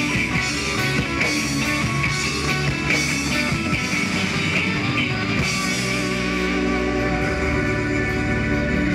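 Live rock band playing loud through a stage PA: electric guitars, bass and a drum kit with crashing cymbals. About six seconds in the crashing stops and held guitar and bass chords ring on.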